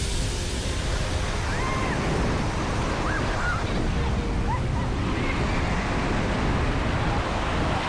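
Ocean surf washing steadily, with wind rumbling on the microphone. A few faint, short high calls sound over it in the first half.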